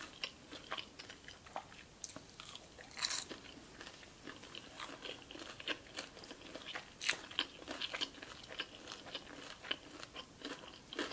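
Close-miked chewing of crispy Korean fried chicken: irregular crisp crunches and small wet mouth sounds, a few louder crunches spaced through the chewing.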